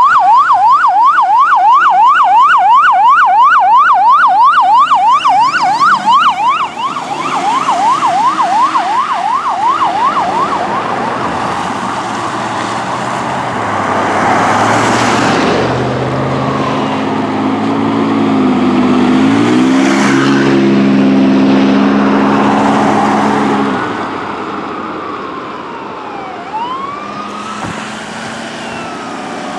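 Fire engine siren on a fast yelp, loud at first and fading out about ten seconds in. Then the pumper's engine and tyres go by, the engine note dipping and climbing once midway, and a second siren wails faintly near the end.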